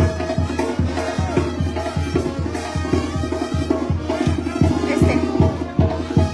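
Sinaloan banda music playing, with a steady, evenly repeating bass beat.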